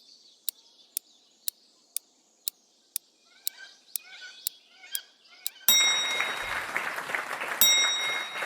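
Quiz-game sound effects: a clock-like tick twice a second with faint bird chirps behind it, then a chime and a sudden burst of applause about five and a half seconds in, with a second chime near the end, signalling a correct answer.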